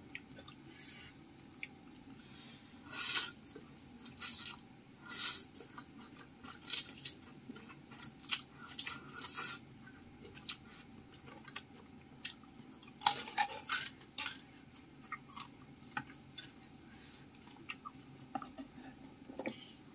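A person slurping and chewing fried instant noodles close to the microphone, in irregular short bursts with quieter stretches between.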